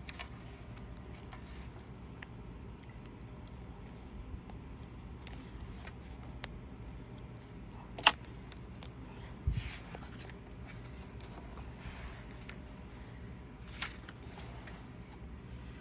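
Pages of a Stalogy B6 paper journal being smoothed and turned: light paper rustles and small scrapes over a faint steady background. A sharp click about eight seconds in is the loudest sound, and a dull thump follows soon after.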